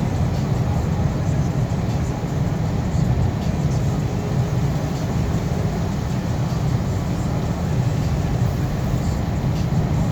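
Steady low rumble of a vehicle driving on a snow-covered road, heard from inside the cabin: engine and tyre noise with no change in pace.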